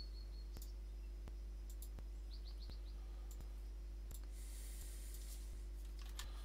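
Faint clicks at an even pace, about three every two seconds, over a steady low electrical hum, with a short hiss about four seconds in.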